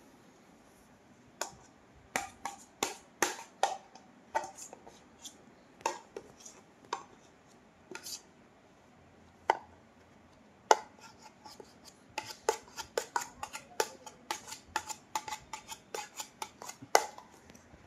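A toy ball knocked against a hard surface: irregular sharp taps and knocks, scattered at first, then coming in a quick, uneven flurry for the last several seconds.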